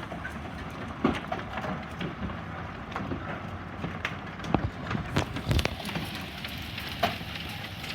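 Rain falling after a hailstorm, with scattered irregular taps and a few louder knocks of drops hitting hard surfaces.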